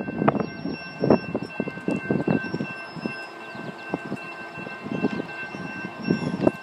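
Wind buffeting the microphone in uneven gusts, loudest near the start, about a second in and near the end, over a faint steady high whine.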